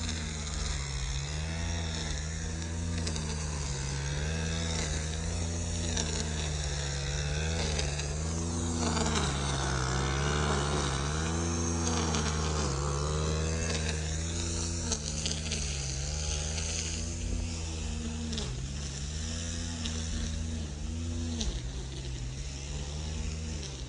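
Gas string trimmer's small two-stroke engine running, its pitch rising and falling as the throttle is worked, with a harsher stretch of noise from about nine to thirteen seconds in.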